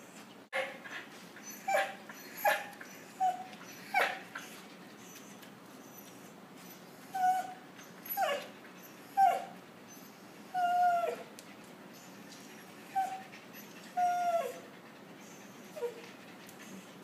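Husky puppies whimpering and yelping: about a dozen short, high cries, each falling in pitch, in two bursts with a pause of about three seconds between them.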